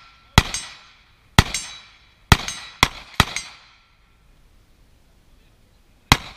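Carbine fired in single shots: five shots at uneven spacing over about three seconds, then a pause of nearly three seconds and one more shot near the end. Each crack is followed by a short echo.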